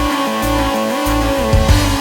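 Background music: electric guitar and electronic rock with a pulsing bass beat.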